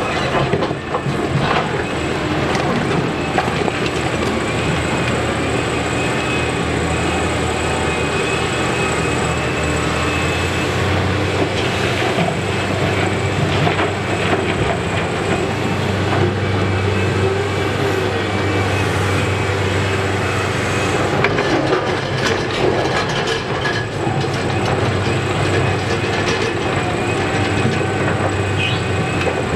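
Liebherr R976 crawler excavator's diesel engine running under load with its hydraulics, the drone strongest through the middle as the loaded bucket is lifted, swung and emptied into a tipper truck. Frequent knocks and clanks of rock and steel from the bucket digging and the dump.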